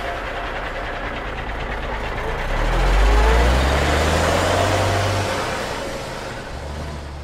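Lorry engine running, then rising in pitch and getting louder about two and a half seconds in as it accelerates, loudest around three seconds in before easing off.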